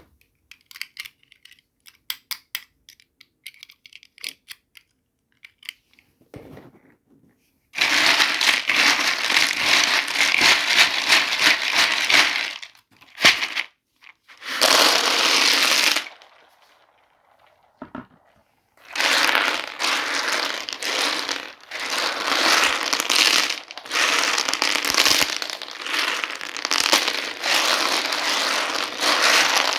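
Plastic toy packaging being handled and crinkled during unboxing: light clicks and taps for the first several seconds, then long stretches of loud, continuous crinkling with brief pauses.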